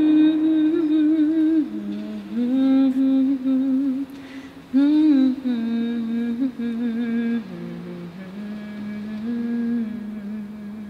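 A single voice humming a slow folk tune without words, holding long notes and gliding between them, growing softer toward the end.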